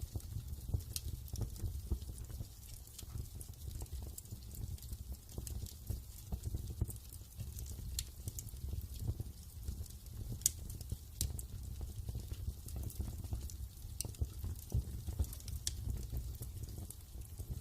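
Wood fire crackling in a fireplace, with irregular sharp pops and snaps over a low, steady rumble.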